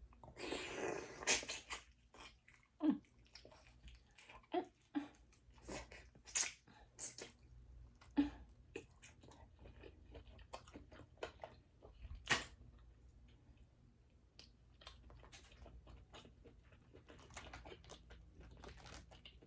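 Close-miked eating of boiled crawfish and mussels: chewing with scattered sharp clicks and crunches, one louder crack near the middle.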